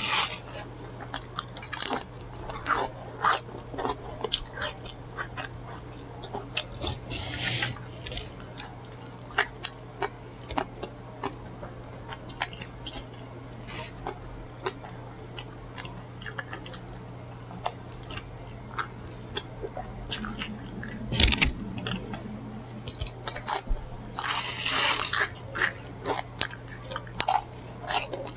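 Close-miked eating: crisp bites and wet chewing, with a few louder crunchy stretches of several seconds.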